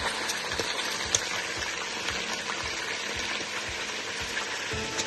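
Beef shank pieces frying in oil in a pot: a steady sizzle with small crackles and pops, the meat being browned until crusty.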